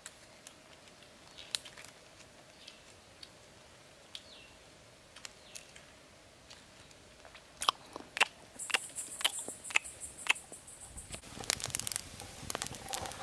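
Campfire of sticks and bamboo crackling: a few faint pops at first, then sharp loud cracks from about halfway through, thickening into denser crackling near the end.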